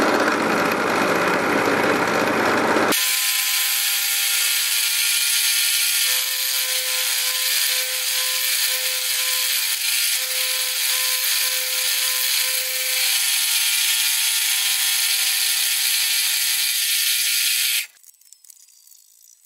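Milling machine with an end mill cutting the teeth (gashes) across a threaded metal gear hob blank. It makes a steady cutting whine over a hiss. The sound changes character about three seconds in and cuts off suddenly near the end.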